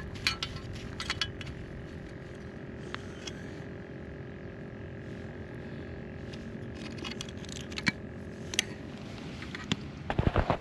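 Light metallic clicks and clinks from handling a caught fish with a metal lip gripper and stringer, with a cluster of louder knocks near the end. Under it a steady drone with a few held tones cuts off about eight and a half seconds in.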